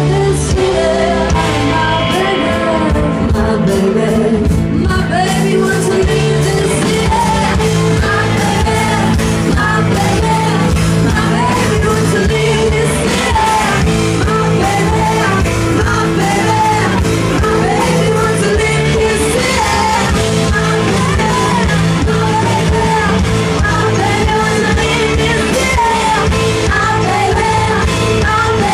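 A rock band playing live, with a woman singing lead into a microphone over electric guitars and drums.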